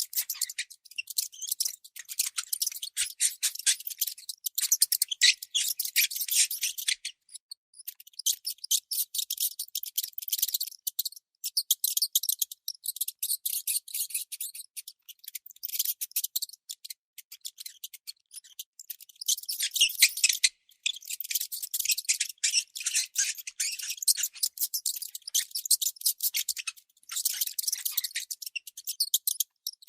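Baby mouse squeaking: rapid runs of high-pitched chirps, with short pauses between runs.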